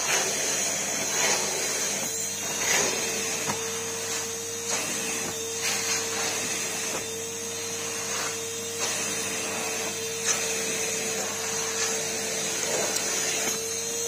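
Numatic Henry vacuum cleaner running steadily with a constant whine, its floor tool drawn back and forth over corduroy upholstery, with scattered scuffs and knocks as the head moves.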